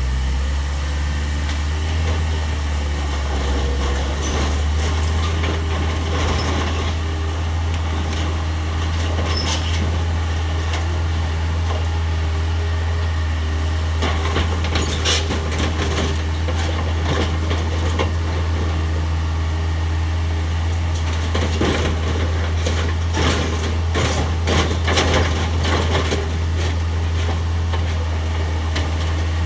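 Case 445 skid steer's diesel engine running steadily, with clusters of cracks and knocks about halfway through and again in the last third as the machine breaks up a small shed.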